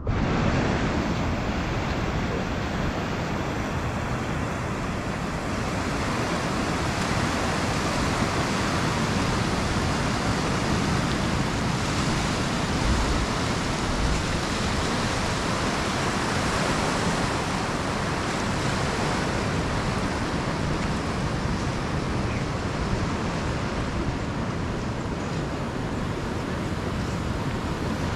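Ocean surf washing up a sandy beach: a steady rushing noise with no letup.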